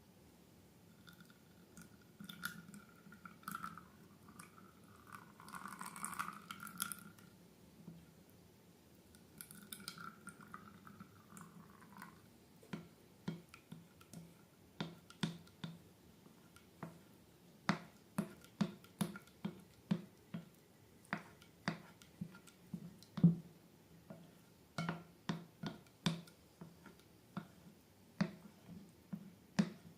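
Slime being worked: soft wet squishing at first, then from about twelve seconds in a long run of sticky clicks and pops, about one or two a second.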